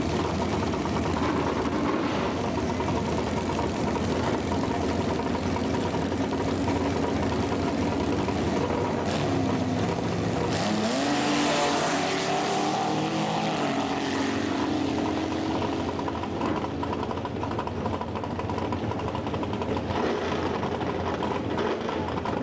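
Drag car engine running at the starting line, revving up in a rising sweep about ten seconds in as the car launches, then holding a steady note.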